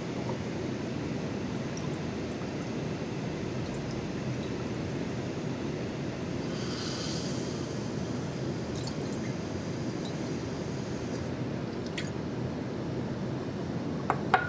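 Benzocaine crystal slurry poured from a glass beaker into a Buchner funnel under vacuum, hissing as the liquid is drawn through the filter about six to eight seconds in, over a steady low rushing background. A few light glass knocks come in the last few seconds as the beaker is handled and set down.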